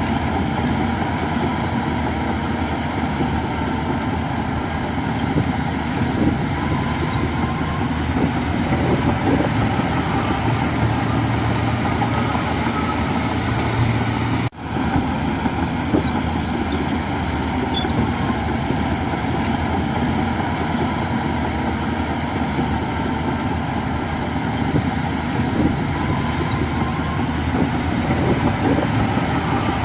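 Heavy diesel machinery running steadily: a crawler bulldozer and garbage trucks working, with a thin high whine in places and a brief break in the sound about halfway through.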